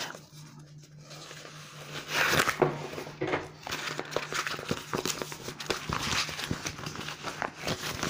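Paper rustling and crinkling as a rolled diamond painting canvas and a paper flyer are handled: quiet at first, a louder rustle about two seconds in, then a run of short rustles.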